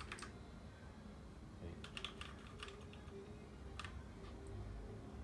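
Keys on a Drevo Tyrfing V2 mechanical keyboard with red switches being pressed in short groups: a couple of clacks at the start, a quick run of several about two seconds in, and two more near four seconds.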